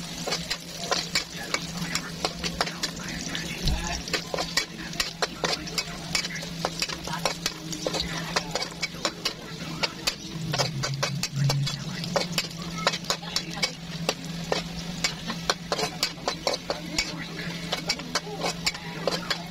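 A metal spatula scraping and clicking against a stone-coated wok in quick, irregular strokes, stirring chopped onion, garlic and ginger as they sizzle. A steady low hum runs underneath.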